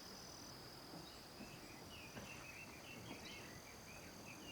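Faint rural ambience: a steady, high-pitched insect drone, with short bird chirps repeating from about two seconds in.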